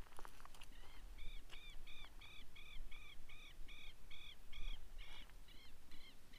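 A bird calling: a steady series of short, arched notes repeated about three times a second, starting about a second in, fairly faint.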